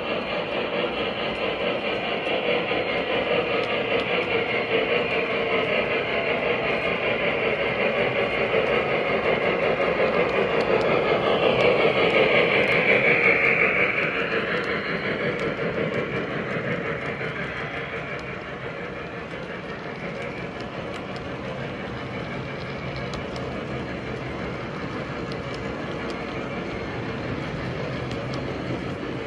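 Model steam locomotive and its train of double-stack container cars rolling along the track, the running noise growing as the engine approaches and loudest about halfway through as it passes close by, with a brief high tone at that moment; the following cars then roll past more quietly and evenly.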